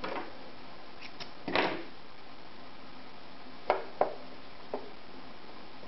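Hands handling a sewing machine while threading the needle: a few light clicks and taps and a short rustle about a second and a half in, with two sharper clicks close together past the middle.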